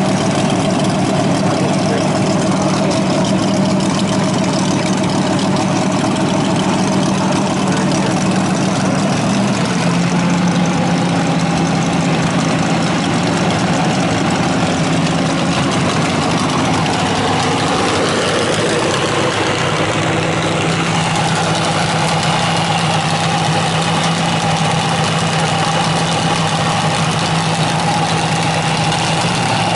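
Race dragster's engine idling loudly and steadily, its idle speed shifting slightly a few times.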